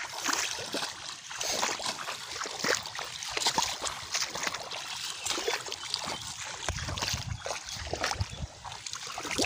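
Shallow muddy water sloshing and splashing as a man wades through it and hauls a wet cast net out of the water, an irregular run of swishes and drips.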